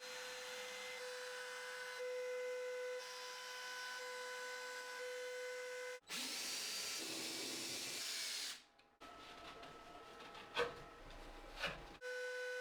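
CNC router spindle running with a steady high whine and a few overtones. About halfway through, a louder, harsher stretch of cutting noise lasts a couple of seconds, then a quieter stretch with two sharp knocks, and the steady spindle whine returns near the end.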